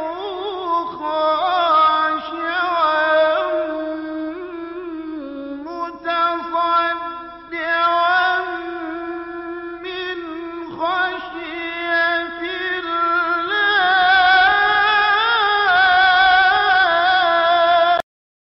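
Melodic vocal chanting in long held notes that waver and bend, with no clear words; it cuts off suddenly near the end.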